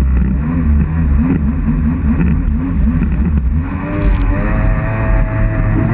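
Jet ski engine running, its pitch wavering up and down again and again as the revs change. About four seconds in the pitch climbs and holds steadier.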